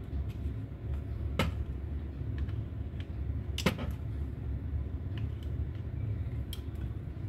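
Small hand tools clicking at a repair bench: two sharp clicks about two seconds apart and a few fainter ticks, over a steady low hum.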